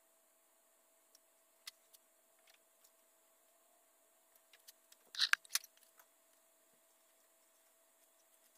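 Quiet handling of paper pattern and vinyl upholstery on a seat-back frame: scattered small ticks and rustles, with a short louder rustling burst about five seconds in, over a faint steady hum.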